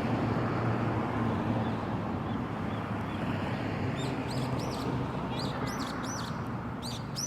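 Outdoor ambience with a steady low rumble; from about four seconds in, a bird gives a run of short high chirps, several a second.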